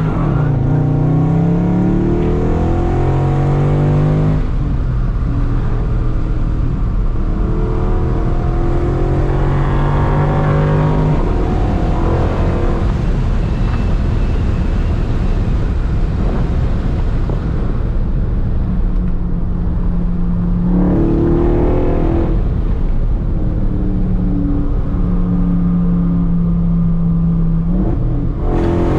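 2019 Dodge Charger Scat Pack's 392 Hemi V8 with a Hellcat airbox, driven on the road: the engine note climbs under throttle, drops back at shifts or lift-off, and holds steady while cruising, several times over.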